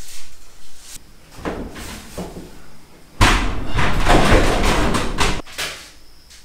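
Knocks and clatter of work inside a steel shipping container. From about three seconds in to past five there is a loud stretch of continuous rattling, made of many small impacts.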